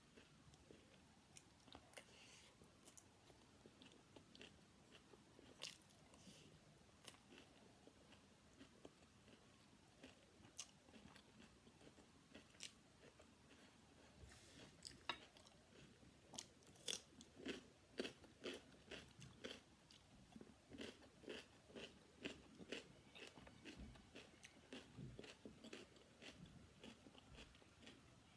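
Soft, close-miked eating sounds: chewing of fried rice with occasional clicks of a spoon on the plate, then, about halfway through, crisp crunching, several crunches a second, as raw cucumber is bitten and chewed.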